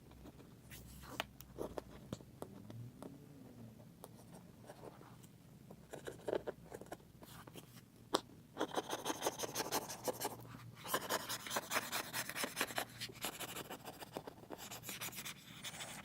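Small screwdriver scraping old screen adhesive off an iPad Air's aluminium housing. A few faint scattered scratches come first, then quick, rapid scraping strokes from about halfway through.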